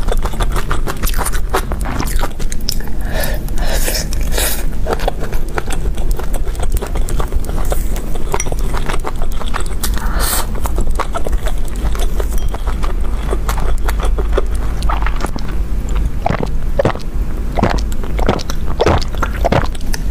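Close-miked chewing and biting of braised meat and rice, with many short, irregular wet mouth clicks and smacks. A steady low hum runs underneath.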